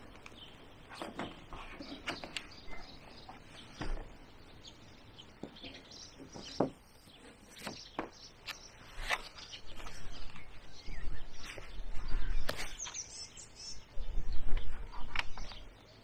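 Birds chirping, with scattered sharp clicks and knocks. In the second half come louder low thumps and rumbles as the plastic (PE) kayak is handled and strapped onto the van's roof rack.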